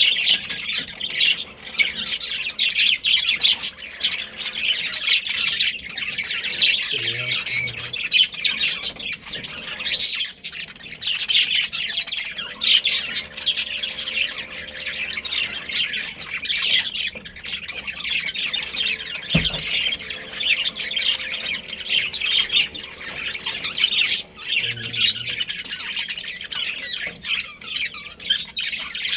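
A colony of budgerigars chattering and squawking, with many high chirps overlapping continuously. A single low thump about two-thirds of the way through.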